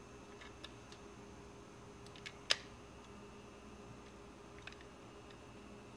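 Light clicks and taps of the plastic parts of a 1/48 Meng F-4G model kit being handled and pressed together in a dry test fit: a few small clicks, with one sharper click about two and a half seconds in. A faint steady hum runs underneath.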